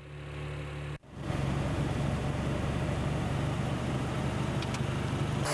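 Car driving: a steady engine hum under a wide haze of road and wind noise, broken by a brief cut about a second in, after which it runs louder and steady.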